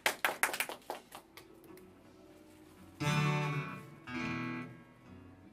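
A few listeners' applause trailing off in the first second, then two strummed chords on an amplified acoustic guitar, about three and four seconds in, each left to ring and fade.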